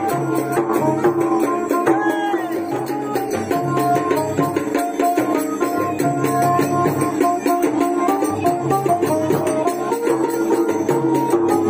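Karam folk dance music: a hand-played two-headed barrel drum (madal) beating a steady, quick rhythm under a held, stepping melody line, with no break.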